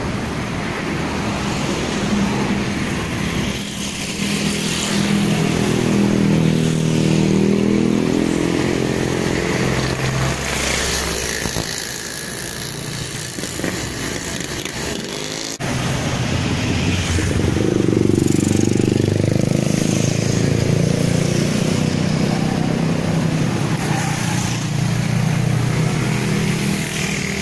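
Steady motor-vehicle engine noise whose pitch slowly rises and falls, with a short break about fifteen seconds in.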